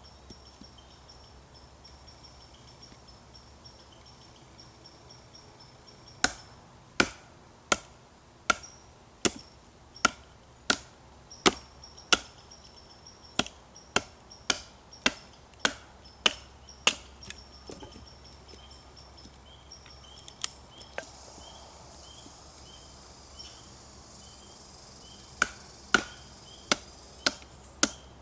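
Batoning small sticks into kindling with a knife: a run of sharp wooden knocks, roughly one to two a second, starting about six seconds in, pausing after about eighteen seconds and resuming near the end.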